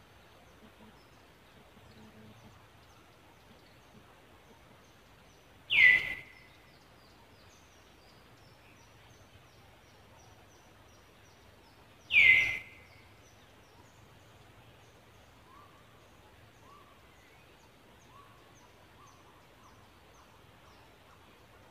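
Forest ambience with faint high chirping, broken twice by a loud, short animal call that sweeps quickly downward in pitch, about six seconds apart.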